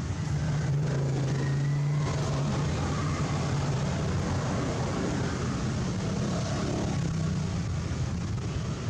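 A motor engine droning steadily in a low hum, loudest in the first couple of seconds and easing off after.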